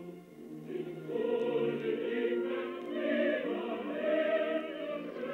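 Background music: a choir singing slow, held chords, swelling about a second in.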